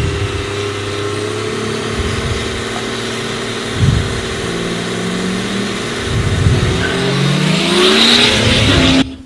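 Turbocharged diesel drag car with a vintage sedan body running on the line, with a brief rev just before 4 seconds in. From about 6 seconds it launches, engine pitch rising as it accelerates down the strip, and it cuts off sharply near the end.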